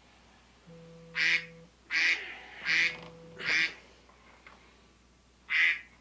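Rhythmic intro soundtrack: short, sharp, quack-like bursts repeat about every three-quarters of a second in a run of four, over a low steady tone, with a pause of about two seconds before the next run starts near the end.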